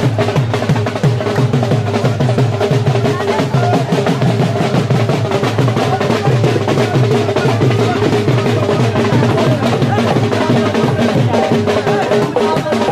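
Loud, fast, continuous drumming, dense strokes with no pause, over a few steady held tones.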